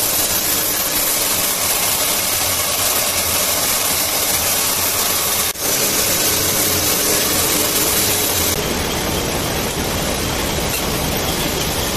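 Textile mill floor with yarn twisting and winding machines running: a loud, steady mechanical hiss over a low hum, with a brief dip about halfway through.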